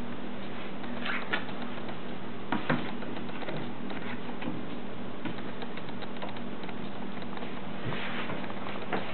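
A steady low hum and hiss under a few light clicks and knocks as a hand sets a 10-inch Durium 78 rpm record on a Califone record player's turntable: a pair of clicks about a second in, a cluster near three seconds and another near the end.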